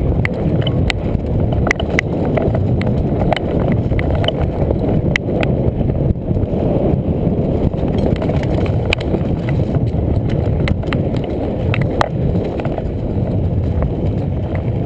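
Mountain bike ridden down a rough dirt trail: a steady rumble of tyres over the ground, with frequent irregular clicks and rattles from the bike.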